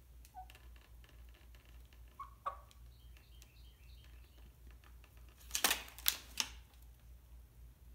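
Chicken moving about in a paper-lined wire crate: a couple of short soft clucks early on the way, then a loud cluster of scratching and paper rustling about two-thirds of the way through. A steady low hum and faint high chirping run underneath.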